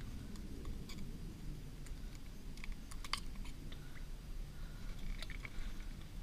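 Scattered small metallic clicks and taps of fishing pliers and hook while unhooking a mangrove snapper, over a steady low rumble.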